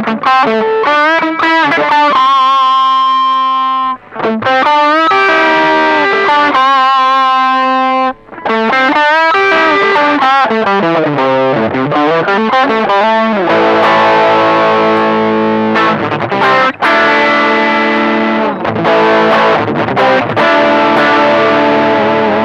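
Electric guitar played through a TC Electronic Dark Matter distortion pedal: bent, wavering single-note lead lines at first, then held distorted chords for the second half.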